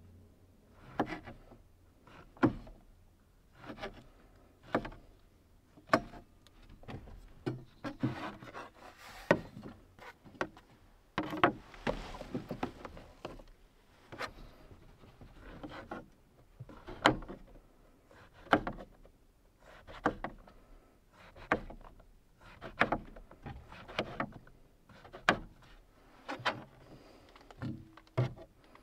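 Kitchen knife slicing mushrooms on a small cutting board: a sharp tap of the blade against the board about once a second. Softer rubbing and handling sounds come between the taps as the slices are moved.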